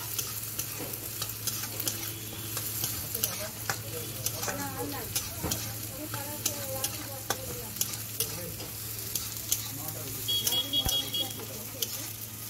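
A metal spatula stirring and scraping egg tadka in a small iron pan, with a steady sizzle of frying and repeated clicks of the blade on the metal. About ten seconds in, a brief run of high electronic beeps.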